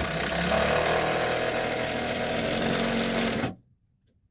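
A motor running steadily at an even pitch, stopping abruptly about three and a half seconds in.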